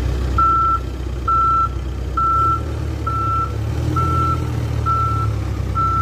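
Case 580 backhoe loader's reversing alarm beeping at one pitch about once a second, sounding while the machine is in reverse. Its diesel engine runs underneath, and the engine note shifts up about halfway through.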